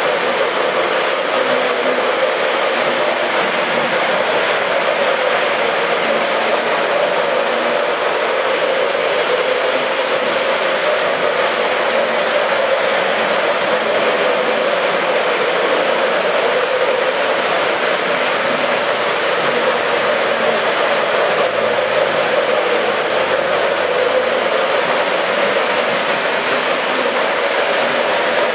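Electric model trains running around a tabletop layout: a steady whir of motors and wheels on the rails, with a hum that wavers slightly in pitch.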